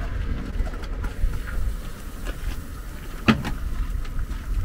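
Cast-iron taiyaki irons being handled on a food-truck griddle: one sharp metal clack about three seconds in and a few lighter clinks, over a steady low rumble.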